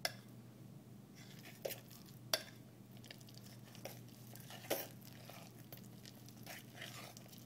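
Metal fork stirring thick bannock dough in an enamel mug, with soft scraping and about four sharp clinks of the fork against the mug's rim and sides.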